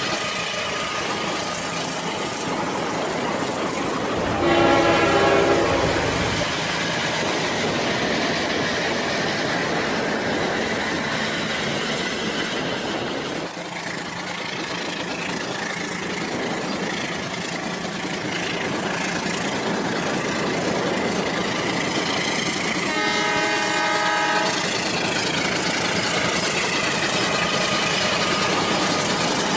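Toy trains running on plastic track with a steady whirring hiss. A horn sounds twice: a loud one about four seconds in, lasting around two seconds, and another near the twenty-three second mark.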